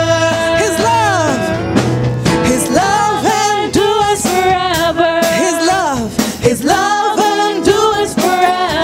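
Live gospel worship band: voices singing long, wavering held notes that slide off at their ends, backed by keyboard, guitars and drums.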